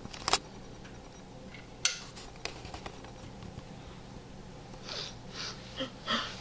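Quiet small-room tone with a steady low hum, broken by two sharp clicks in the first two seconds and a few lighter ticks, with faint rustling near the end.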